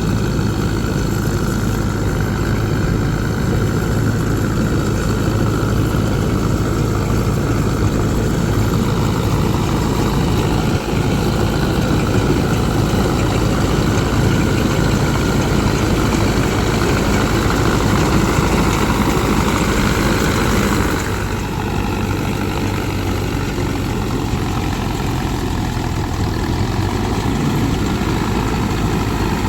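Heavy farm machine's diesel engine running steadily, its note easing and getting a little quieter about two-thirds of the way through.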